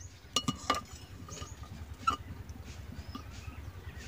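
A metal spoon clinking and knocking against a pot of boiling potatoes as one is fished out to test whether it is done: a few sharp knocks in the first second and another about two seconds in.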